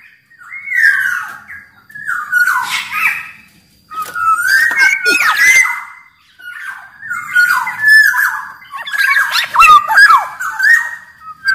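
Black-naped oriole (kepodang) singing: loud, gliding whistled phrases mixed with harsher nasal notes, in about five bursts separated by short pauses.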